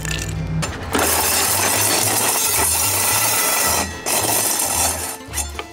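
RC car with saw blades mounted in place of its wheels, spinning them at speed on gravel: a loud, harsh grinding and scraping that starts about a second in, breaks off briefly around four seconds, and starts again before stopping near the end.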